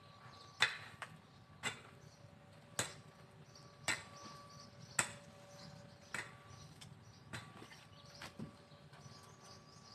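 Pickaxe striking into garden soil to loosen it, about one blow a second, eight times, the later blows softer.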